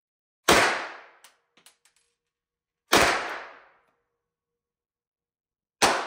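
Three handgun shots, about two and a half seconds apart, each with a short echoing tail in the indoor range, and a few light clinks after the first.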